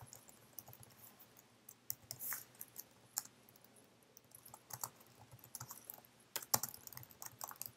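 Computer keyboard typing: faint, irregular key clicks, with a couple of sharper key strikes about two-thirds of the way through.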